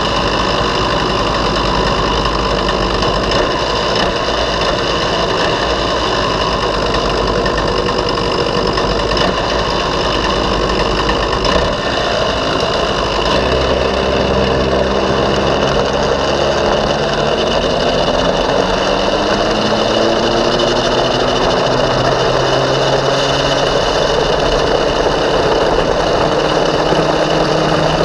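Racing go-kart's small single-cylinder engine running close to the microphone, idling steadily at first; from about halfway the engine note starts rising and falling with the throttle as the kart moves off.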